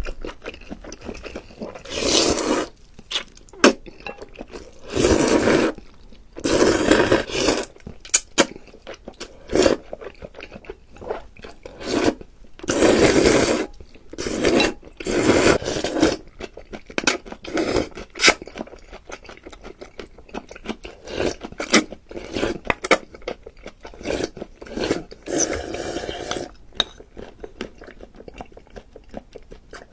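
Close-miked eating sounds: chewing and crunching mouthfuls in irregular bursts, with scraping and clicking of utensils against a dish.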